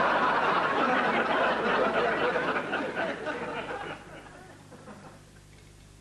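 Studio audience laughing after a punchline, dying away about four seconds in.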